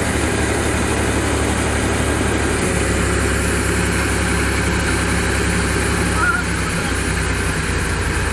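A vehicle engine idling steadily under a broad, even rushing noise.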